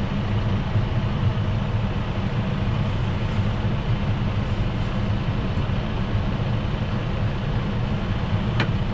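Tractor engine running steadily at constant speed, an even low hum.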